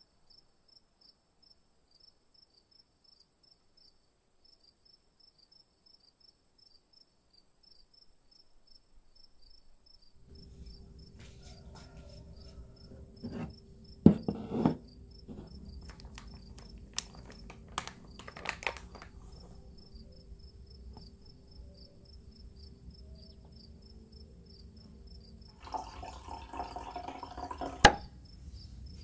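Faint, rapid, even insect-like chirping throughout. From about ten seconds in, kitchen handling sounds come in over a low hum: knocks as a flour canister is moved on the counter about fourteen seconds in, a few light clicks, then cloth rustling and a sharp click near the end.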